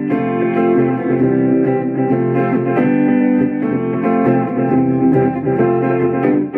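Clean electric guitar through a Fender Champion 20 combo amp on its Blackface voice with delay and reverb, played on the neck Seymour Duncan '59 pickup: picked notes and chords ringing out. The playing stops near the end.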